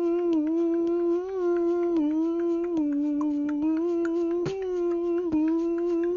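A person humming one long, nearly level tune that bends only slightly in pitch, with scattered light clicks.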